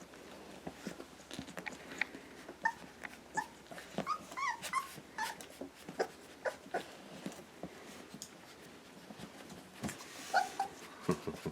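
Three-week-old puppies giving short high whimpers and squeaks, in a cluster a few seconds in and again near the end, among soft knocks and shuffling.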